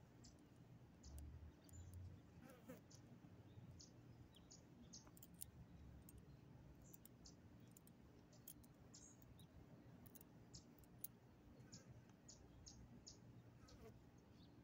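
Near silence: faint outdoor background with a low hum and scattered soft, high ticks.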